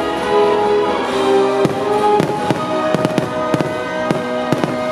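Aerial fireworks bursting in a rapid string of sharp bangs, starting about a second and a half in and coming thick in the second half, over loud music with long held notes.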